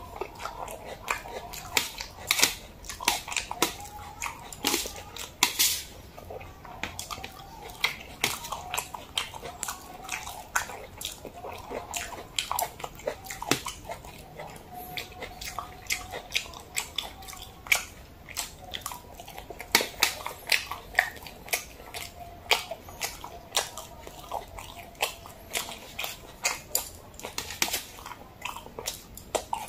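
Close-miked chewing and mouth sounds: frequent sharp clicks and wet smacks all through, with chopsticks tapping now and then on a stainless steel tray.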